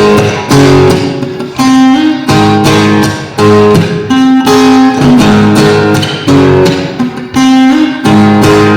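Acoustic guitar strumming chords in a steady rhythm, about two strums a second, during an instrumental break in a rock song.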